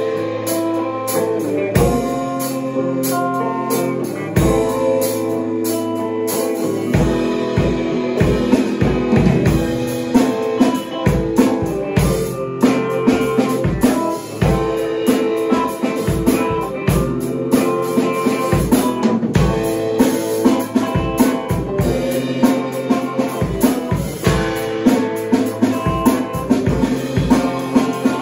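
Drum kit and guitar playing a song together. Held guitar chords ring with a few single kick-drum hits at first, and the full kit comes in with a steady beat about seven seconds in.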